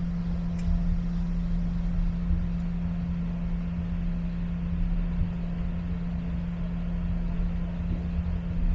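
Jet airliner cabin noise while taxiing: a steady low hum over a rumble.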